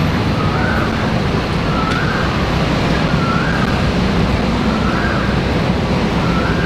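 Singapore MRT train running, a steady loud rumble and rush, with a faint wavering tone that swells about every second and a half.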